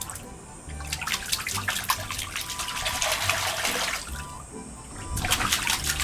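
Hands splashing and churning the shallow water of an inflatable paddling pool, in two bouts with a short lull about four seconds in.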